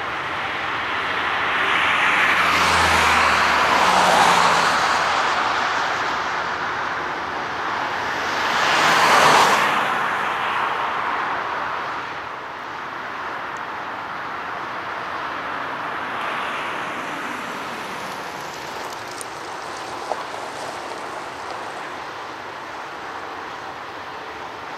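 Boeing 777's jet engines roaring as the airliner rolls out down the runway after touchdown. The roar swells twice in the first ten seconds, then slowly fades as the aircraft slows and moves away.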